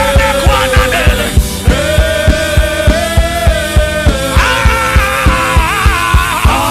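Live gospel worship music: a band playing sustained keyboard chords over a steady drum beat.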